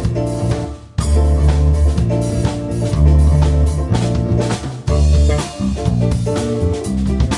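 A band playing an instrumental rock arrangement, led by drum kit and guitar over a heavy bass line. The band drops out briefly and crashes back in together about a second in.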